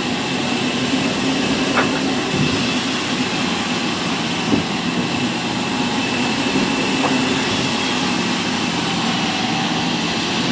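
Large wheel band saw running and ripping a poplar log lengthwise: a steady hum and hiss, with a few brief knocks, the loudest about four and a half seconds in.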